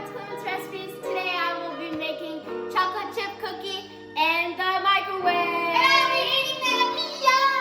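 Music with a child's voice singing over it.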